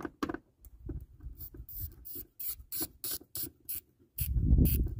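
Ratcheting hand screwdriver tightening the grounding screw on a floodlight's mounting bracket, the pawl clicking at about five clicks a second. A brief, louder low rumble about four seconds in.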